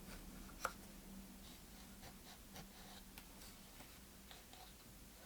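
Faint rubbing and scratching of an alcohol-dampened towel wiping the inside of a Beoplay A1 speaker's plastic housing, with one light click about half a second in.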